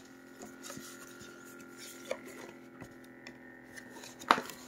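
Paper instruction manual rustling and crackling as it is taken out and opened, with a sharp paper crackle about four seconds in. Underneath runs a steady hum from the cordless hand massager's motor.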